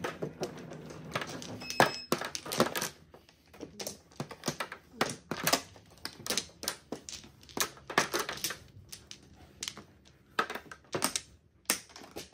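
Mahjong tiles clicking and clacking on the table in quick, irregular hard taps as they are handled and discarded during play.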